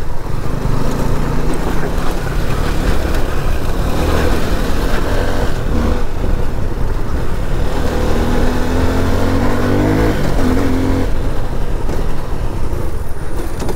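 Suzuki V-Strom SX 250's single-cylinder engine running under load as the bike rides a rough dirt trail, with a steady rumble throughout. About two thirds of the way in, the engine note rises for a few seconds.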